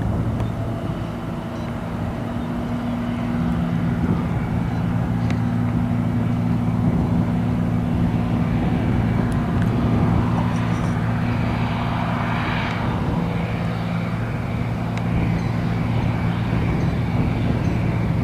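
A propeller airplane's engine runs with a steady low drone. A broader rush of noise swells and fades around ten to thirteen seconds in.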